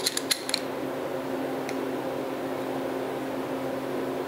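A few quick metallic clicks in the first half second as a wrench works the bolt of a homemade bushing press tool on the shock's clevis eye, with one faint click later. A steady electrical hum sounds in the background.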